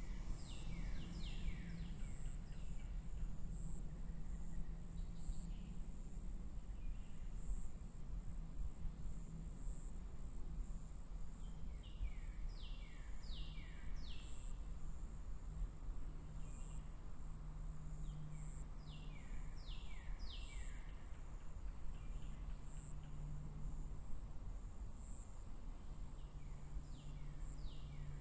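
Meadow ambience: a bird sings short phrases of three or four quick falling notes about four times, over a steady high insect chirping pulsing about twice a second, with a low hum and rumble underneath.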